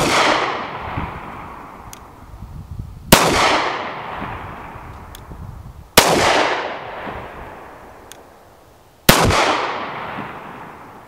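Ruger-57 pistol firing 5.7x28mm rounds: three single shots about three seconds apart, each followed by a long echo fading away. The echo of a shot fired just before is still dying away at the start.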